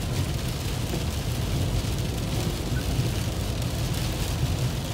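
Steady low road and engine rumble inside a vehicle driving on a wet highway, with rain hissing on the windshield.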